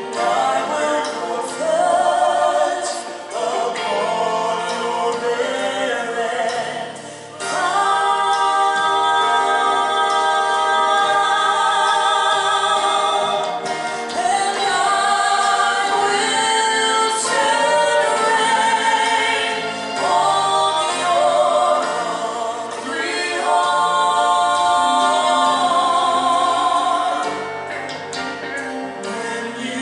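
Congregation singing a slow gospel worship song with sustained, drawn-out notes.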